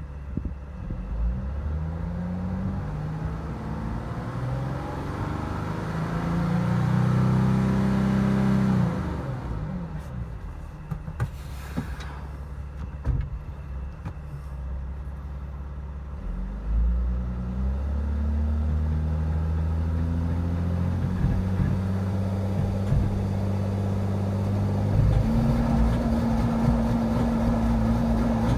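Mercedes Sprinter van engine revved up against the brakes in a transmission stall test, on a transmission the owner takes for bad. The engine speed climbs over several seconds, drops back about nine seconds in, then climbs again and is held high, with a steadier, higher tone joining near the end.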